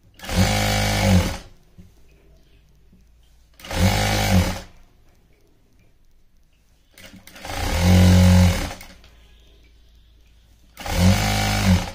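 Jack industrial sewing machine stitching in four short bursts of about a second each, stopping in between while the cloth is guided along.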